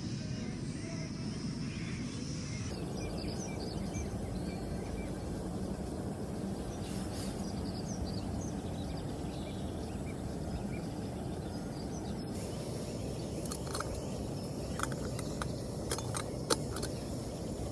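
A steady low rushing noise, with faint bird chirps above it and a few sharp clicks near the end.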